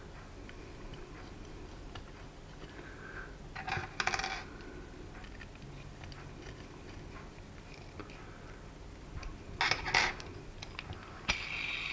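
Light metallic clinks of a small hex driver and engine parts being handled on a stone worktop: two short clusters of clicks, about four seconds in and again near ten seconds, then a single sharper click. A steady hiss starts right after that last click, near the end.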